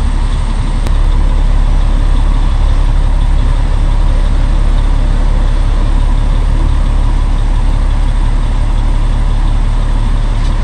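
Kenworth C500 bed truck's Cummins ISX diesel idling steadily.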